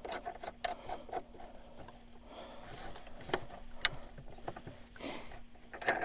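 Small clicks and light rubbing as a plastic terminal knob on an electric fence energizer is turned and tightened down over a wire lead by hand, with two sharper clicks about midway and a brief rustle a little after five seconds.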